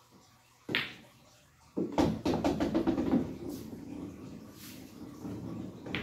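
A pool cue strikes the cue ball with a sharp click. About a second later the billiard balls clack together, and a quick run of clacks over a rumble of rolling balls follows and slowly dies away.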